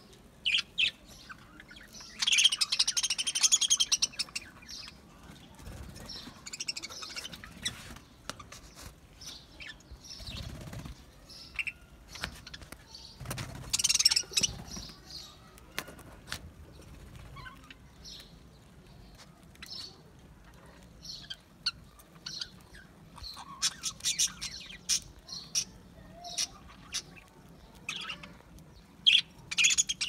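A flock of budgerigars chirping and chattering in short, high calls scattered throughout. There are two louder bursts of dense chatter, one about two seconds in and one around the middle.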